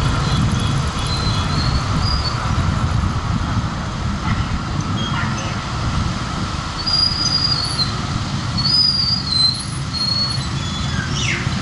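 Steady low rumble of a vehicle moving through city traffic, engine and road and wind noise together, with a few short high-pitched squeals about two-thirds of the way in.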